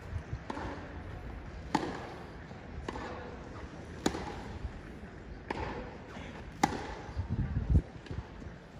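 Tennis ball struck back and forth with racquets in a rally on a grass court: sharp pops every second or two, with softer knocks between them. A low rumble near the end.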